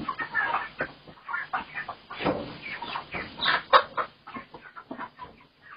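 Chickens clucking and squawking in short, irregular bursts, thinning out toward the end.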